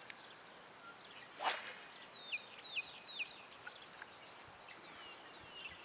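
A single quick swish of a spinning rod whipping through the air on a cast, about a second and a half in. Right after it, a bird gives three high calls that slide downward, with fainter calls of the same kind near the end.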